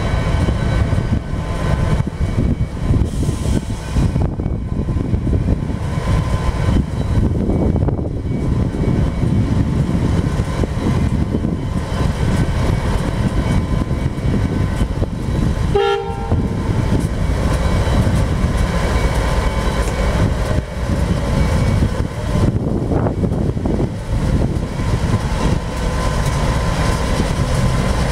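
Pacific National NR class (GE Cv40-9i) diesel-electric locomotives under power, pulling a freight train slowly away, with a steady deep engine rumble. A brief higher tone sounds about halfway through.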